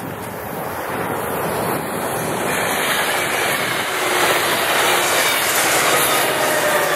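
COASTER bilevel commuter train passing close at speed: its wheels run on the rails with a steady rushing rumble that grows louder from about halfway through as the cab car draws near. A faint high ringing rides over the rumble near the end.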